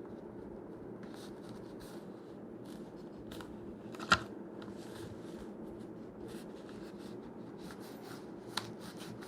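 Handling of a kydex holster: light rustling and small plastic clicks, with one sharp click about four seconds in, over a steady low hum.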